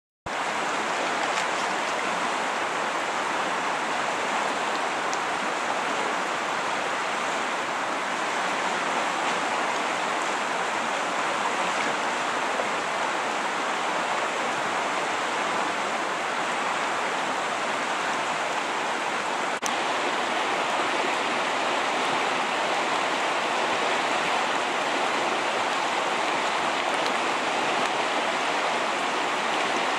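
River water flowing and rippling over a rocky bed, a steady rushing sound. A brief click about two-thirds of the way through.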